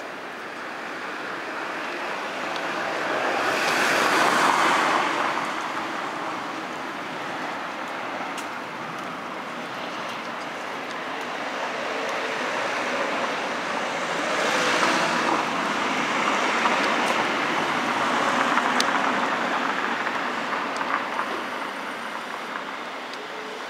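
Street traffic noise: a steady rush with passing cars swelling and fading, loudest about four seconds in and again around fifteen and nineteen seconds.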